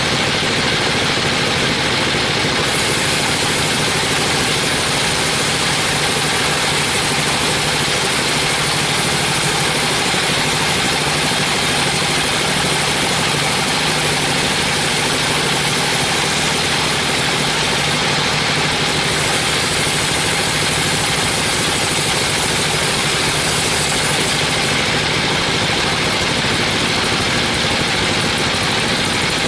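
A 42-inch band sawmill running steadily with its blade cutting through a teak beam, giving an even, unbroken machine noise.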